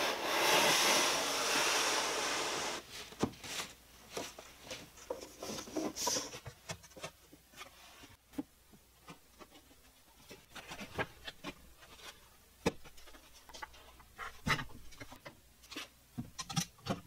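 A plywood drawer bottom sliding into the drawer box, a scraping wooden rub for about three seconds. Then scattered light knocks and clicks as the drawer box and bar clamps are handled.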